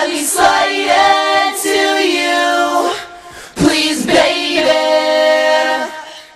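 Female singing without accompaniment: long held notes, a short break about three seconds in, then a last held note that fades out near the end.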